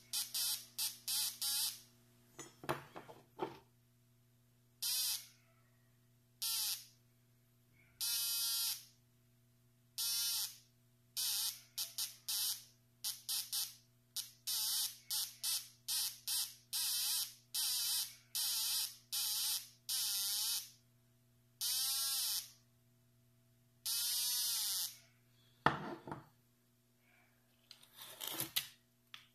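Piezo buzzer of a homemade MkII pinpointer metal detector beeping each time metal comes near its search coil: many separate buzzy beeps of varying length, some in quick runs and some held longer, with a slight bend in pitch. A steady electrical hum runs underneath, and a couple of handling knocks come near the end.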